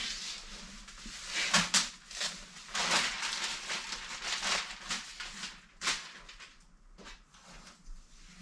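Masking tape and plastic masking sheeting being peeled and pulled off a freshly painted car body, heard as irregular rustling, crinkling and ripping swishes, the loudest a little over a second in, about three seconds in and about six seconds in.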